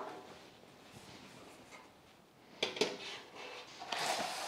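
Painted steel cabinet panels being lifted and set down among cardboard packing: a couple of sharp metal clanks with a short ring about two and a half seconds in, then a scraping rustle of cardboard near the end.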